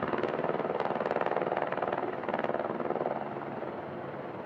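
AH-64 Apache attack helicopter flying by, its main rotor beating rapidly over the engine sound, a little fainter near the end.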